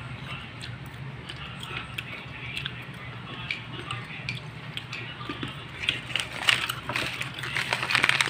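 Crunchy fried corn snacks (chicha-corn) being bitten and chewed, with small clicks of wooden sticks against plastic bowls, over a steady low hum. The crunching grows busier and louder over the last couple of seconds.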